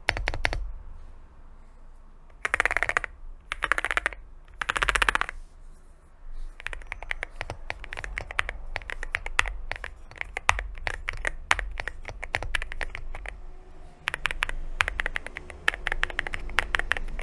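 Typing on an AKKO MU01 mechanical keyboard with a solid walnut wood case and unlubricated linear Akko Piano Pro V3 switches. There are a few rapid bursts of keystrokes in the first seconds, then steady typing. The sound has no dominant spacebar and no spring ping.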